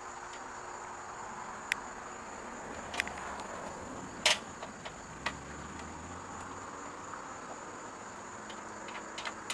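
A few sharp metallic clicks and taps from bolts and hardware being handled and started by hand into a Jeep flat fender, the loudest about four seconds in, over a steady high-pitched background whine.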